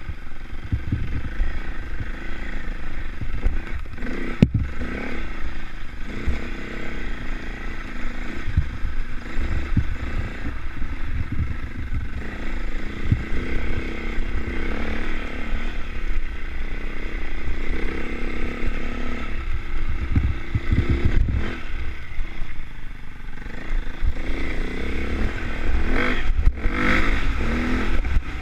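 KTM trail bike engine running as the bike rides a rutted grassy track, the revs rising and falling with the throttle. A gusting low rumble from wind on the microphone and occasional knocks from bumps run underneath.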